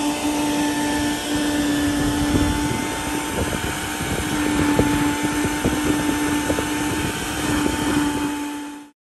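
Small red wet/dry shop vacuum running with a steady motor whine as its hose nozzle is worked over carpet; it cuts off suddenly near the end.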